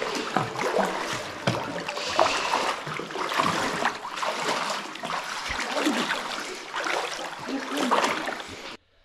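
Feet wading and splashing through shallow water over a rocky pool floor: irregular splashes and sloshing that cut off suddenly just before the end.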